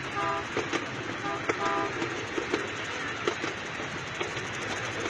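Miniature train's horn sounding short toots: one near the start, then two more in quick succession about a second and a half in, over the steady running clatter of the cars on the track with irregular clicks from the rails.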